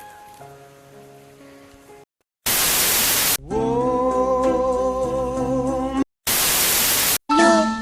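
Soft music, then a brief cut to silence and a loud burst of static hiss about two and a half seconds in. A long, wavering held tone follows, then a second burst of static and the start of quickly swooping tones near the end.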